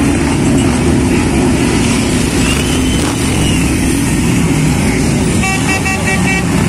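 Motorcycle engines running as several cruiser motorcycles ride slowly past one after another. Near the end a horn beeps rapidly, about five short toots in a second.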